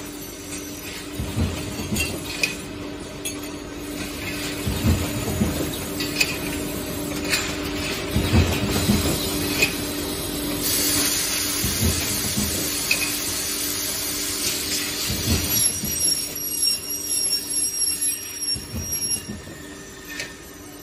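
Solar panel aluminium frame processing line running: a steady machine hum under irregular metallic clanks and knocks as the aluminium profiles are moved along the conveyors. A hiss lasts several seconds about halfway through, and a faint high whistle follows.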